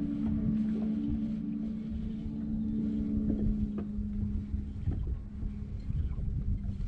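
Bow-mounted electric trolling motor humming steadily, with wind rumbling on the microphone; the hum fades out about two-thirds of the way through.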